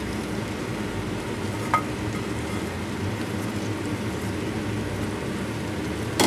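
Thin-sliced venison, peppers and bamboo shoots sizzling steadily in a hot wok for a stir-fry, with a short tap about two seconds in and another near the end.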